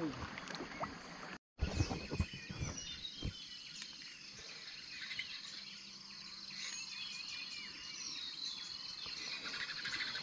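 Dusk riverside ambience: many birds chirping with short, quick calls over a steady high insect drone. A few knocks sound about two seconds in.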